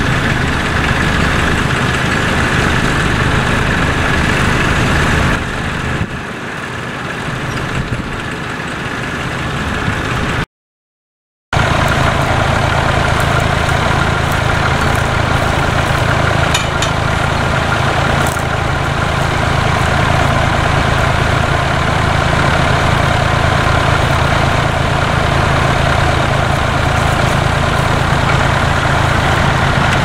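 Vintage tractor engine running as it pulls a plough, growing quieter about five seconds in. After a second of silence at a cut, a vintage tractor engine idles steadily.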